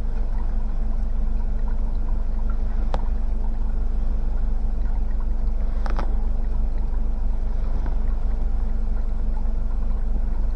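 Steady low rumble, with two faint clicks about three and six seconds in.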